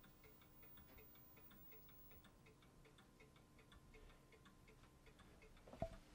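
Near silence with faint, regular ticking, about four ticks a second, over a faint steady hum, and a soft knock near the end.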